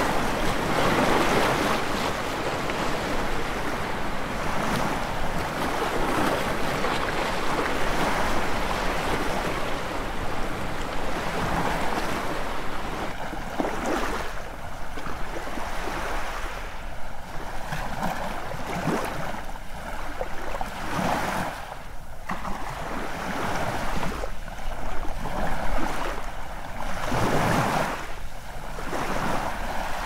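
Ocean surf washing onto a beach: a continuous rush of breaking waves, dense and steady for about the first half, then a more uneven wash with separate splashes and swells.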